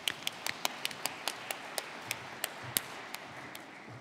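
Audience applauding, with individual hand claps standing out over a wash of clapping that thins out and dies away near the end.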